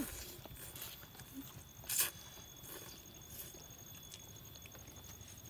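Quiet slurping and chewing of noodles, with one louder slurp about two seconds in.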